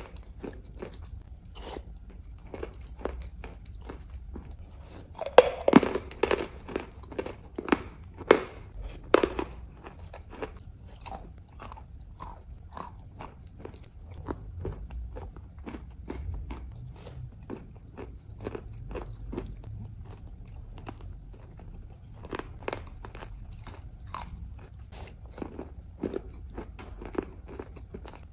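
Wet chalk pieces in clay paste being crunched and chewed, a steady run of sharp crunches that is loudest and densest about five to nine seconds in.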